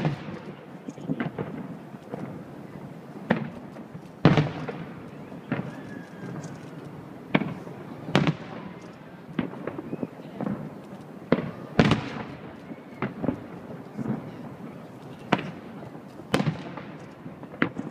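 Aerial firework shells bursting: a string of sharp bangs, one every second or two, several of them louder and echoing.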